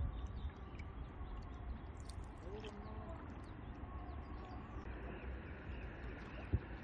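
Birds calling across the water in short sliding calls, over a low steady rumble of wind, with one sharp knock about six and a half seconds in.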